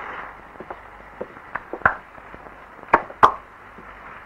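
A few sharp knocks at uneven intervals, the loudest two close together about three seconds in. A hiss fades out just after the start.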